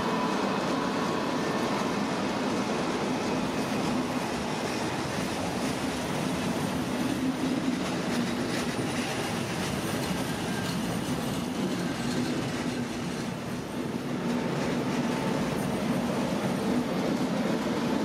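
A double-deck regional push-pull train moving slowly past, with a steady running noise of wheels on rails and a faint steady hum. Near the end its DB class 114 electric locomotive comes past.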